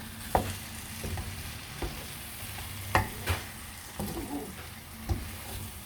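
Chicken pieces in masala paste frying in a pot with a low sizzle, stirred with a spoon that knocks against the pot about five times.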